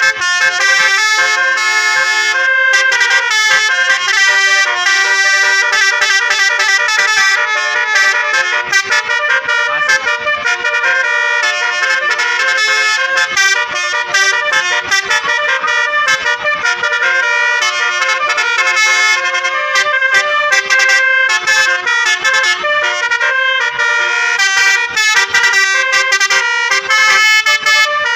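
Tour bus basuri (telolet) musical air horns playing a fast, continuous melody, the notes stepping quickly from one to the next with several tones sounding at once.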